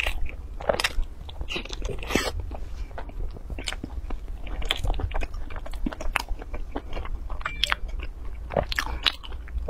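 A person biting and chewing soft pastry and bread, heard as irregular sharp mouth clicks and crackles, busier about two seconds in and again near the end.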